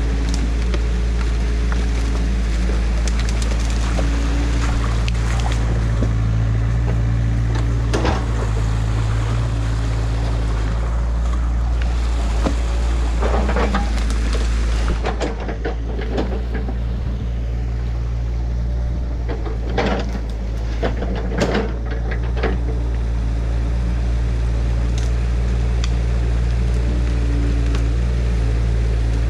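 Mini excavator's diesel engine running steadily, under the continuous rush and splash of water pouring through a breach in a beaver dam into the pool below. A few sharp knocks and cracks stand out as the machine works the dam.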